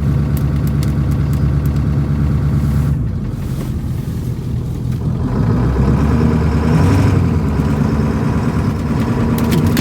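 1996 Ford F350's 7.3 Powerstroke turbo-diesel V8 running as the truck drives off. The engine note drops about three seconds in, then builds again from about five seconds as it picks up speed.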